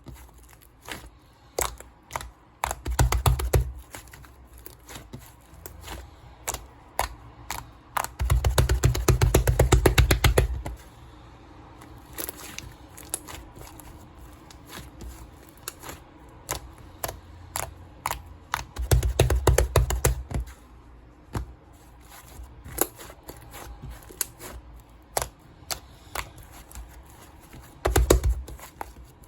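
Scattered clicks and taps, with four bursts of fast tapping; the longest and loudest lasts about two seconds, roughly eight seconds in.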